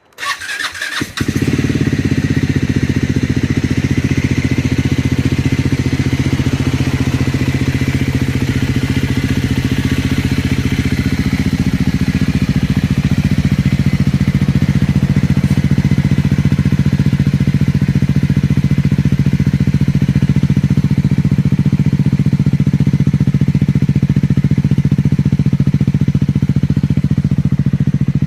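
Triumph 400 single-cylinder motorcycle engine cold-started: about a second of starter cranking before it catches, then idling steadily. The owner presents this as an abnormal engine noise.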